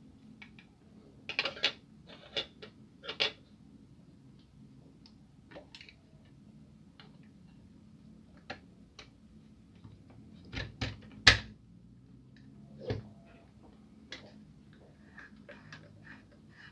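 Hard plastic parts of a Kyocera DK-150/DK-170 laser printer drum unit clicking and knocking as they are handled and fitted. A quick run of sharp clicks comes about a second in, then scattered light ticks, and the loudest snaps come about eleven seconds in.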